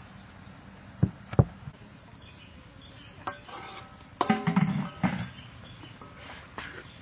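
Metal pot lid and tray clanking, ringing briefly from about four seconds in to past five seconds, with two dull knocks about a second in.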